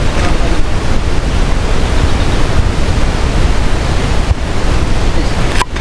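Wind buffeting the microphone: a loud, steady rush, deepest at the bottom, that drops out for a moment near the end.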